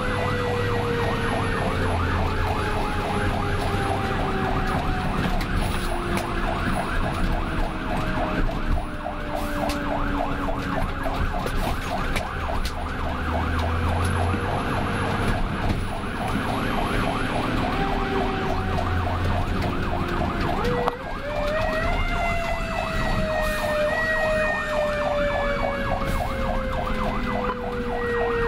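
Fire engine sirens heard from inside the cab while responding. A long wailing siren tone slowly falls in pitch, is wound sharply back up about two-thirds of the way through, then falls again, over a fast, rapidly repeating yelp, with the truck's engine rumbling underneath.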